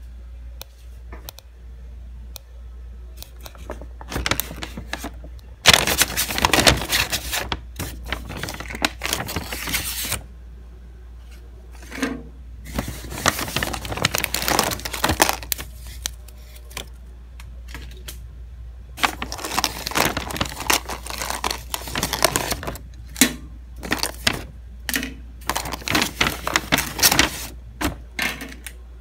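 Paper takeout bag rustling and crinkling as a hand rummages through it, with plastic cutlery and plastic cup lids clicking and rattling. The handling comes in several bursts, the loudest starting about six seconds in.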